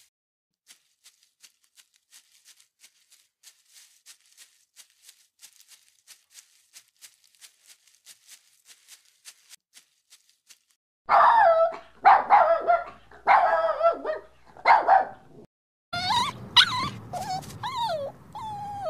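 A puppy whining and yelping in a run of short, high cries, each sliding down in pitch. The cries begin about halfway through and come in two bunches. Before them there is only faint quick ticking, about four or five a second.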